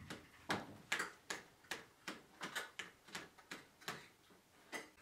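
Tableware clinking and tapping on plates and a metal serving tray as people eat: a string of light, irregular clicks, about three a second.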